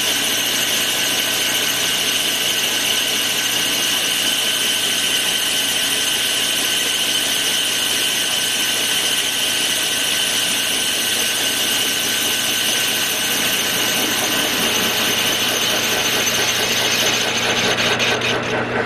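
Metal lathe running steadily with a constant whine while a small hand file scrapes against the spinning locomotive wheel. There is some irregular clatter near the end.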